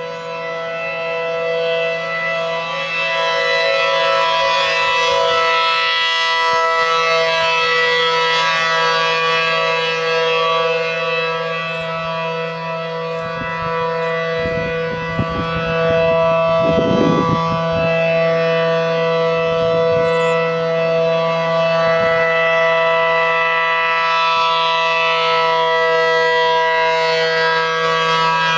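ACA P-10 mechanical outdoor warning siren sounding at full speed: a loud, steady chord of several held tones with no rise or fall in pitch. Its loudness sags around the middle and swells back up as the rotating siren head turns.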